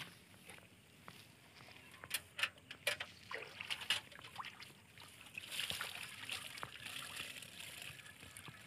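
Water poured from a metal bucket into the casing of a small diesel water pump to prime it, trickling and splashing steadily from about halfway through. A few sharp knocks and clinks of the metal bucket come before the pour.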